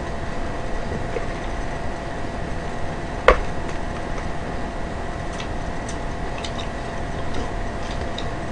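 Small ticks and clicks of eating and handling food on paper wrappers over a steady hum and hiss, with one sharp click about three seconds in.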